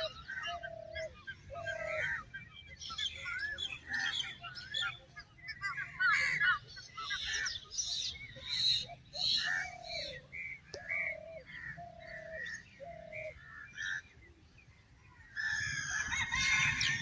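Several birds calling together in a dawn chorus: many quick high chirps and warbles, with a short lower note repeated in runs. A louder, harsher burst of calling starts near the end.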